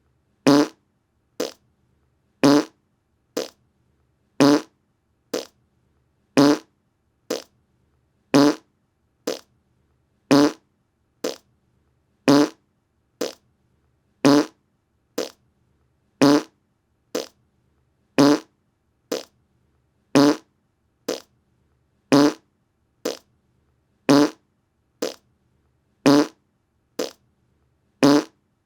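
Short fart sounds repeating in a steady loop. A louder one comes about every two seconds, each followed just under a second later by a shorter, quieter one.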